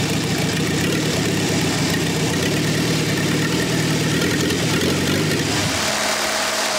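Gasoline engine converted to run on diesel fuel, turning over and firing roughly with a rapid, uneven chatter: it keeps running only with a heat gun blowing hot air into it. About five and a half seconds in, the rough chatter gives way to a steadier, smoother hum.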